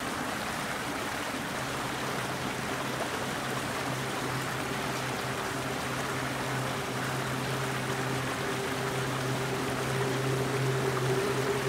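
Dark ambient drone under an intro: a steady rushing hiss, joined after about a second and a half by a low sustained tone, with a higher sustained tone swelling near the end.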